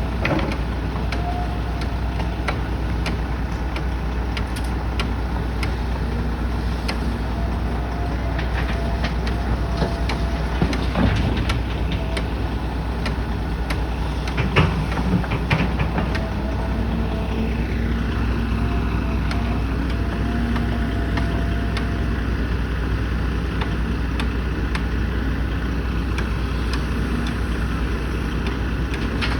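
Steady rumble of engines at a building site, with scattered sharp knocks and clanks, most clustered about a third and halfway through.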